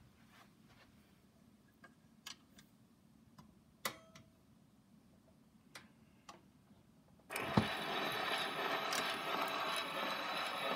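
Edison Diamond Disc phonograph being started: a few faint clicks from its mechanism and controls, then about seven seconds in a thump as the reproducer meets the record and a steady surface hiss from the run-in groove begins, before the music starts.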